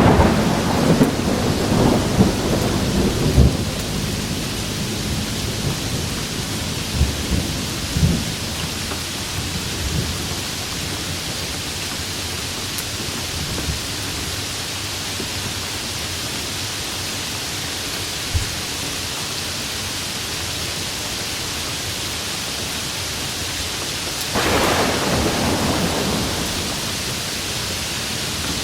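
Steady rain falling, with a thunderclap rumbling and crackling at the start and another roll of thunder near the end.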